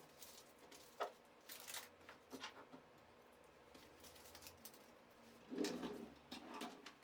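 Quiet room with scattered light clicks and rustles of something being handled, the loudest a rustle of about a second and a half starting about five and a half seconds in.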